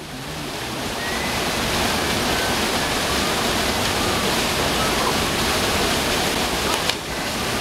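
Steady rushing of a small waterfall pouring into a pool, swelling over the first second and then holding even, with a brief click and dip in level about seven seconds in.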